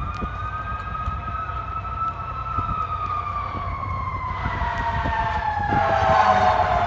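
Fire engine siren wailing: one slow rise in pitch, then a long steady fall, with a second siren tone briefly crossing it in the first couple of seconds. A diesel engine runs underneath.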